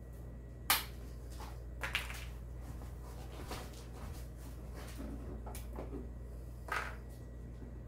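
A few short, sharp clicks and taps as hands work at the RC crawler's plastic body shell, pulling its body clips, over a steady low hum.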